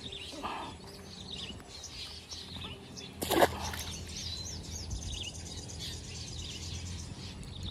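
A striped snakehead slips from the hand into the canal with a single short splash a little over three seconds in. Birds chirp throughout.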